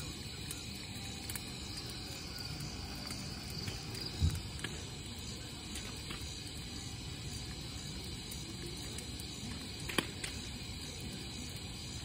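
Night insects chirring steadily and faintly over a low rumble on the microphone, with a dull thump about four seconds in and a sharp click near ten seconds.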